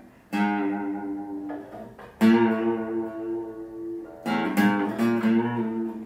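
Acoustic guitar strummed, chords struck and left to ring, with a quicker run of strums near the end.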